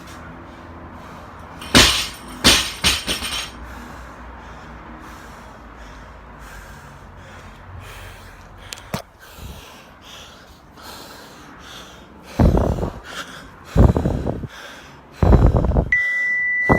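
Heavy breathing of an athlete winded from a hard CrossFit workout, with loud breaths in the last few seconds. A few sharp clatters come about two seconds in, and a steady electronic beep starts just before the end.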